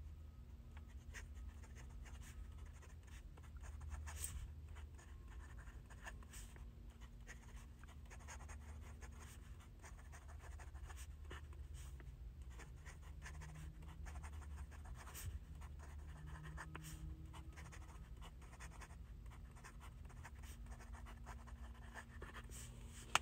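Nib of a Sailor ProGear Slim fountain pen writing on Tomoe River notebook paper: many short, faint, a tiny bit scratchy strokes as words are written, over a steady low hum.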